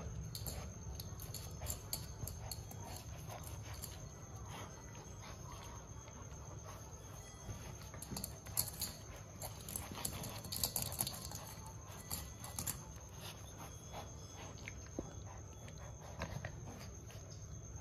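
Two German Shepherd puppies play-fighting: irregular scuffling and short puppy sounds, busiest around the middle.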